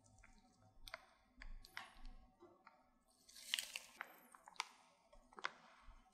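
Plastic piping bags crinkling and squishing as persimmon purée and then whipped cream are squeezed out, in faint short bursts with a louder stretch about three and a half seconds in.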